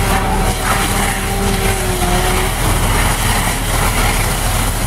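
A heavy engine running steadily under a continuous hiss of hose streams spraying into a fire. A faint steady hum fades out about halfway through.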